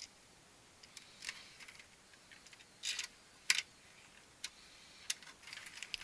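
Light scattered clicks and short scratchy scrapes of a screwdriver and wire ends being handled at the terminals of a heat pump control box, about half a dozen in all, the sharpest about three and a half seconds in.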